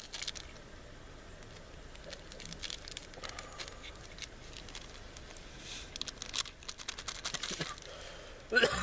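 Crinkling and tearing of a plastic instant-noodle packet as it is opened and handled, with scattered light crackles.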